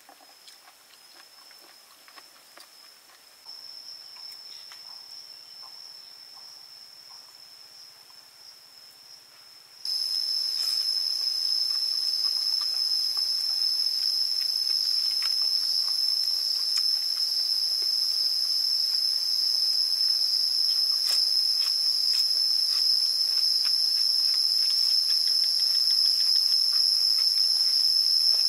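Steady, high-pitched chorus of forest insects, a continuous shrill drone that jumps much louder about ten seconds in. Faint small clicks sound over it now and then.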